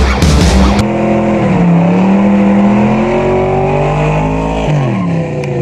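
A Chevrolet Nova's engine revving hard through a burnout, its pitch held high and slowly climbing, then dropping away near the end.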